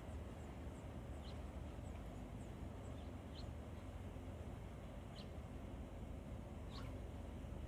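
Small bird giving short, high chirps, about five, spaced a second or more apart, over a steady low hum.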